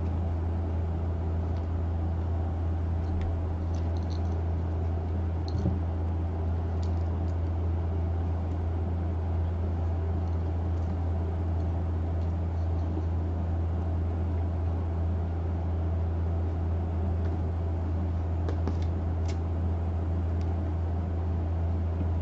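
Steady low hum of a running machine in a small room, with a few faint soft clicks over it.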